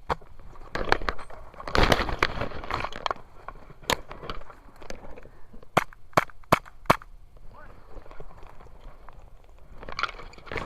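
Airsoft guns firing scattered single shots as sharp pops, with a quick run of four pops about six seconds in.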